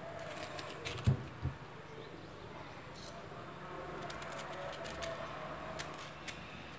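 Kitchen handling sounds as a lemon is peeled and cut: light clicks and taps of a knife against a cutting board, with two dull thumps about a second in.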